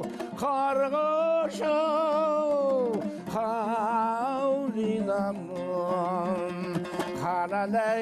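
A man singing a Kazakh zhyr, an epic chant, in long held notes with a strong wavering vibrato. He accompanies himself on a dombra, the two-stringed Kazakh lute, plucked and strummed beneath the voice.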